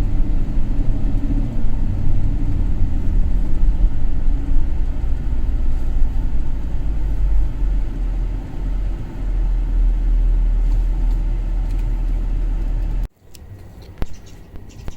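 Low, steady rumble of a 2008 GMC Yukon XL 2500's engine and road noise heard from inside the cab. It cuts off abruptly near the end.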